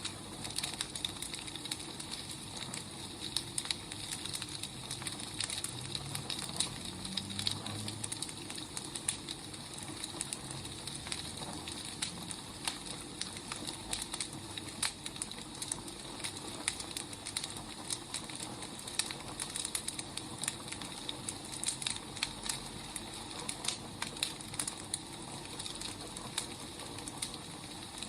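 Wood fire burning, with irregular crackles over a steady hiss.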